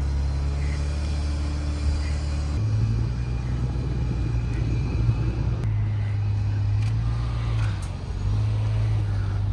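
Engine of a handlebar vehicle carrying the camera, running steadily at low speed with a low hum that steps up in pitch about two and a half seconds in. Wind and road noise run underneath.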